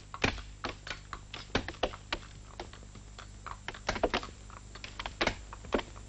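Footsteps and a pack horse's hooves knocking and clicking irregularly on a stony path, a few sharp strikes a second with no steady rhythm.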